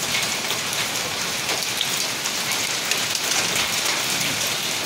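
Hail falling with rain: a steady dense patter with many small sharp ticks of hailstones striking.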